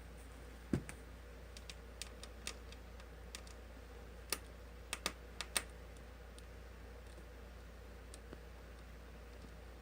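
Scattered light clicks and taps from handling a laptop's screen panel and small parts by hand, with one duller knock just under a second in and a quick run of clicks around the middle.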